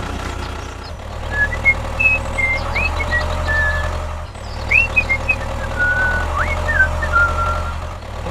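A steady low motor hum, with short high chirping notes scattered over it.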